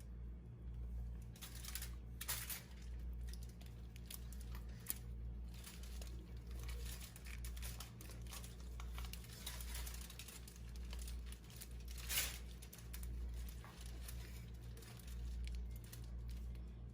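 Aluminium foil crinkling and rustling as it is handled and folded around a whole marinated chicken, with a few louder crackles, about two seconds in and again about twelve seconds in. A steady low hum runs underneath.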